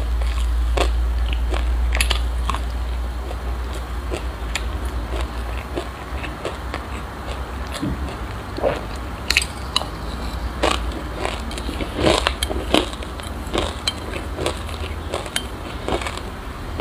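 Close-miked chewing of crunchy sesame seeds mixed with passion fruit: many irregular sharp crunches and crackles. Near the end a metal spoon scrapes inside a glass bowl.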